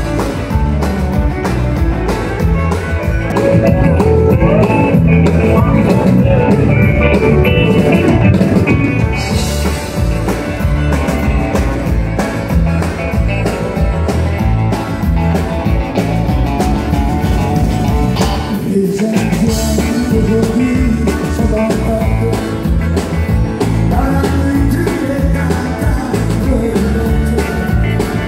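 Live country-western band playing with a steady drum beat: electric and acoustic guitars, fiddle, drums and keyboard together.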